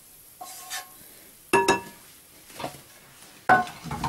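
A metal pan and utensil knocking against a glass bowl: a loud ringing clink about one and a half seconds in, a softer knock, and another loud clink near the end. Under them is the faint sizzle of hot oil on grated carrots.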